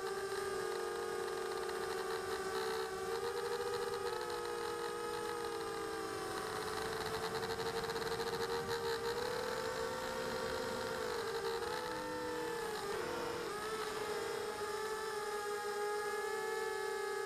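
Quadcopter's electric motors and propellers whining steadily, heard from the camera on board, as several close tones together. The pitch wavers and dips briefly about twelve seconds in, then settles again.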